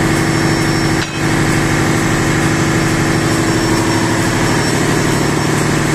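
Steady, loud drone of running machinery in a ship's engine room, with a constant hum.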